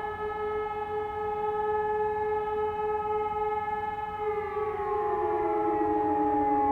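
E57 electromechanical motor sirens sounding the fire-alarm test signal: a steady howl at full pitch, and about four seconds in the loudest siren starts winding down in a falling wail while another siren holds its steady tone.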